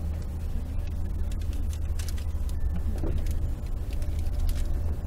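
A car's engine and tyres heard from inside the cabin as it creeps forward at walking pace, a steady low rumble.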